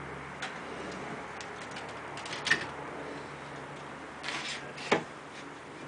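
Scattered light clicks and knocks of wooden pieces and gear being handled on a wooden workbench, with two sharper knocks, one about halfway through and one near the end.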